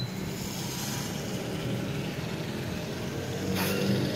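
Floodwater draining in a whirlpool down a round storm-drain inlet: a steady rushing of water, with a faint low hum underneath and a short louder hiss near the end.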